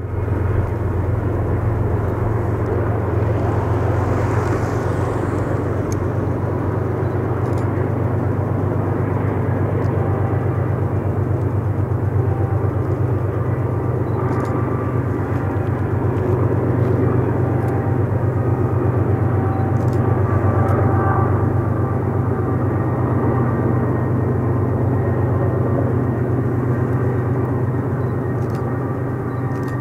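Diesel freight locomotive engines running, a deep, steady hum.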